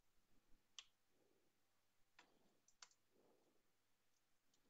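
Near silence broken by a few faint, scattered clicks of computer keys while a web address is typed.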